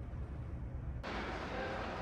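Steady low rumble of a car ferry under way, heard inside the ship. About a second in, the background changes abruptly to a brighter, hissier ambience over the same rumble.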